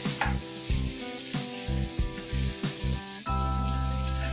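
Chopped bell peppers sizzling in hot oil in a wok as they are stirred with a wooden spatula. Background music plays under it and swells about three seconds in.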